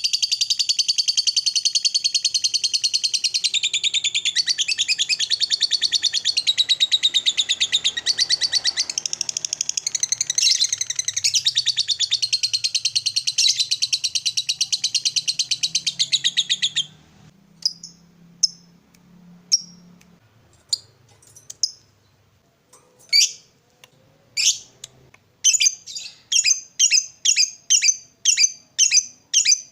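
Lovebird ngekek: a long unbroken run of rapid, high chattering notes that breaks off suddenly about seventeen seconds in. Then come scattered single sharp calls, and near the end a quick regular series of chirps at about three a second.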